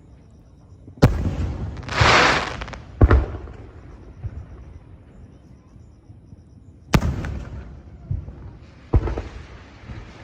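Aerial fireworks shells bursting: four sharp booms, spaced about two and then four seconds apart, each echoing away. A loud crackling hiss runs between the first two.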